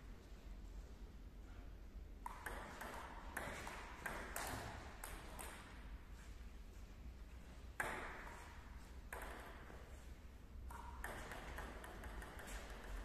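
Table tennis rally: the plastic ball clicking sharply off the bats and the table, a hit roughly every second, each echoing briefly in the sports hall.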